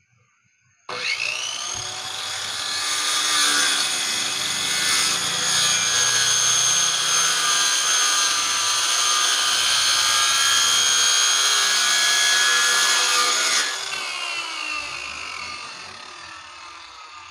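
1050-watt Makita-lookalike circular saw (M1Y-185) starting about a second in, its motor whine climbing quickly, then cutting through a wooden board for about twelve seconds. Near the end the trigger is released and the motor winds down with a falling whine.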